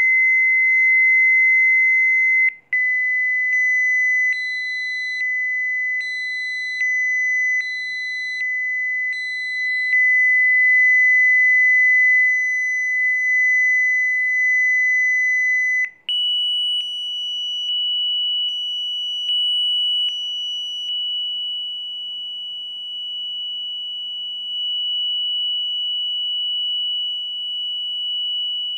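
Electronic sine tones from a Rife frequency sequence: a steady high-pitched pure tone that cuts out for a moment and comes back slightly lower, then switches to a higher steady tone about halfway through.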